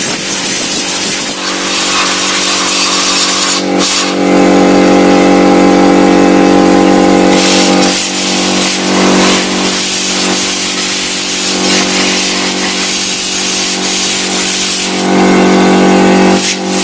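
Air compressor running steadily while an air gun blows dust out of a desktop computer case, with two long blasts of hissing air: one about four seconds in lasting about three seconds, and a shorter one near the end.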